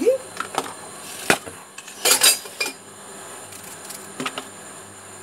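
A few irregular knocks and clinks of kitchen utensils, with the sharpest knock just over a second in and a short clatter about two seconds in, over a faint steady hum.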